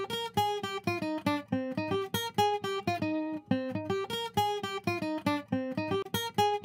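Background music: an acoustic guitar picking a quick melody of single notes, several a second, each ringing briefly.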